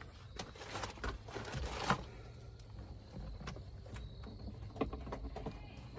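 Plastic interior trim being handled and pried out: rustling and scraping, then a few light clicks.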